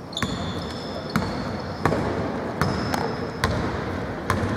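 Basketball dribbled on an indoor court: about seven sharp bounces at an uneven pace, with short high squeaks from sneakers on the floor over the hall's steady background noise.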